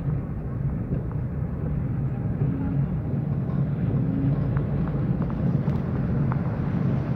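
Car driving along a rain-wet street: a steady low engine and road rumble, with a few faint ticks about two-thirds of the way through.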